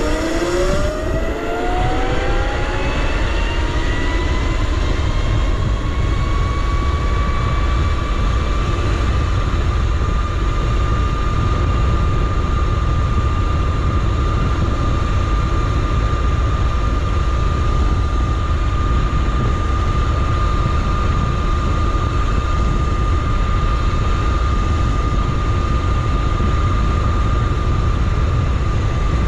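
Electric motor of a Razor RSF650 electric motorcycle on its highest speed setting: its whine climbs in pitch as the bike accelerates over the first several seconds, then holds a steady high note at top speed. Heavy wind rush on the microphone lies under it.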